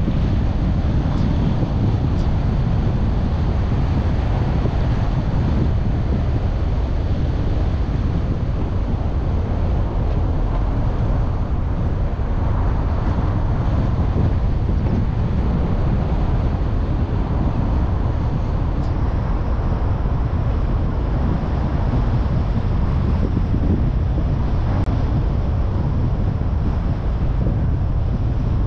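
Steady road and wind noise of a car on the move: an even low rumble that holds unchanged throughout.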